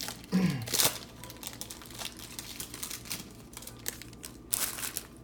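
Trading card pack wrapper crinkling and tearing as it is opened, with two louder crinkles, one about half a second in and one near the end, and light clicks and rustles of cards being handled between them.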